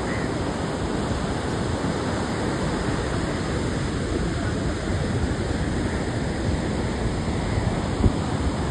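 Rough sea's surf breaking continuously on the beach, a steady rushing wash, with one brief bump near the end.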